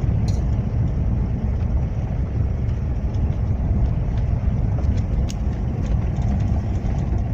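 Toyota FJ Cruiser's V6 and tyres making a steady low rumble as it drives along a dirt road, with a few faint clicks.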